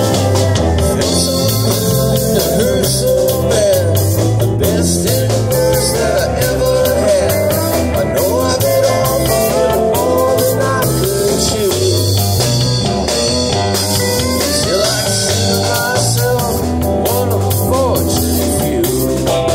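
Live band playing an instrumental break between verses: drum kit and electric guitar under a lead that slides and bends in pitch, in keeping with the steel guitars being played.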